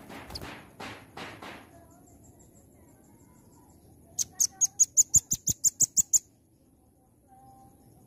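Velvet-fronted nuthatch giving its rapid 'nembak' call: about a dozen sharp, high notes in quick succession for about two seconds, midway through. In the first second and a half there are a few soft rustling knocks.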